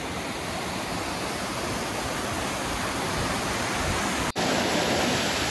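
A small waterfall on a mountain stream splashing over rocks: a steady rush of water that grows slightly louder, with a brief dropout about four seconds in.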